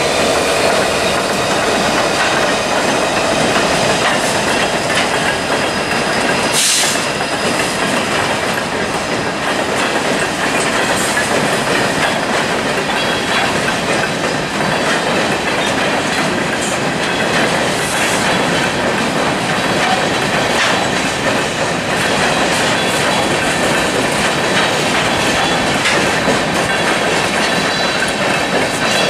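Freight train rolling past at close range, its diesel locomotives followed by covered hopper cars, with a steady rumble of wheels on rail and a faint thin wheel squeal. One sharp knock sounds about seven seconds in.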